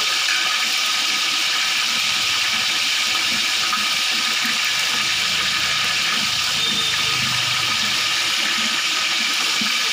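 Small onions and dried red chillies sizzling steadily in hot oil in a large metal pot as a ladle stirs them: the frying stage at the start of a chicken biryani.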